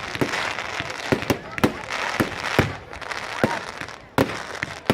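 Fireworks display: a run of bangs and crackling, with one loud bang a little after four seconds in.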